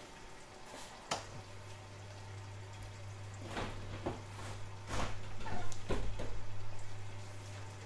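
Liquid bubbling and spitting in a lidded pan of food steaming on the hob, growing louder and more agitated in the second half. A click about a second in is followed by a steady low hum.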